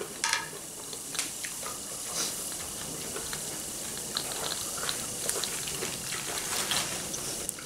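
Squid tentacles sizzling on a tabletop barbecue grill: a steady hiss with scattered small crackles and clicks.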